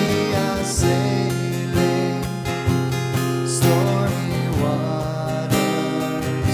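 Acoustic guitar, capoed, strummed in a steady rhythm with a strong stroke about once a second and lighter strums between, the chords ringing on.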